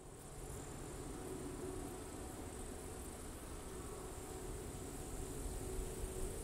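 Distant low rumble of a heavy freight train hauled by a Class 66 diesel, crossing a steel railway bridge, under a steady high-pitched chirring of crickets.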